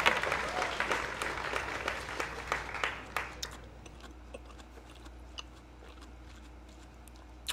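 Applause fading out over the first three seconds or so, then scattered soft clicks of someone chewing mango.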